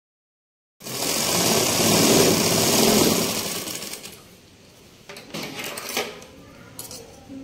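Sangat sewing machine running fast, stitching a seam through the fabric. It starts about a second in, slows and stops about four seconds in, followed by a few light clicks.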